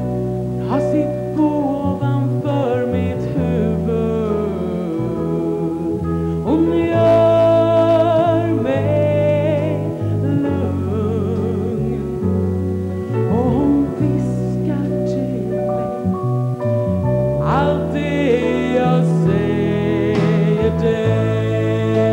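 A woman singing live with vibrato over instrumental accompaniment that holds long, steady bass notes.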